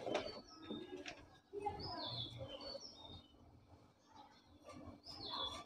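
Birds chirping faintly in the background: scattered short, high chirps, a few at a time.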